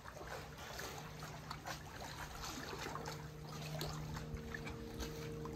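Small waves lapping and trickling against the rock at the waterline, in many small splashes, over a steady low hum from a distant motor.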